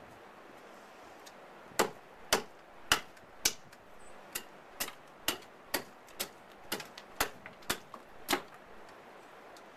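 A hatchet being driven down through a trembling aspen billet by repeated blows on its back: about a dozen sharp knocks, roughly two a second, starting about two seconds in, the first few loudest.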